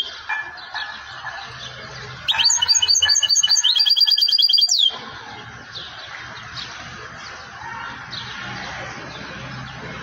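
European goldfinch singing: a loud phrase of rapid repeated high notes, about two and a half seconds long, beginning about two seconds in and ending in a falling slur. Fainter scattered chirps follow.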